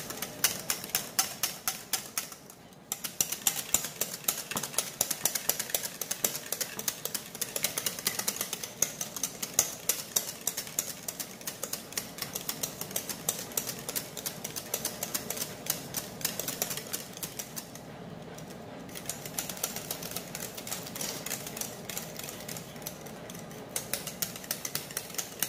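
A wire balloon whisk beaten fast against the sides of a bowl, a rapid run of light clicks and scrapes with a couple of short breaks. It is beating homemade mayonnaise without stopping, to keep the egg and olive-oil emulsion from breaking.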